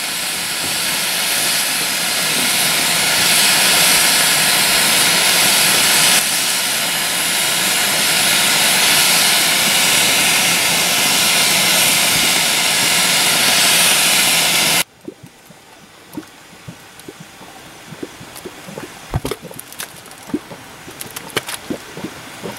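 Steam vent (fumarole) in a crust of dried clay hissing loudly and steadily with a jet-like rush. It cuts off suddenly about fifteen seconds in, giving way to a much quieter background with scattered faint pops and plops from a bubbling grey mud pot.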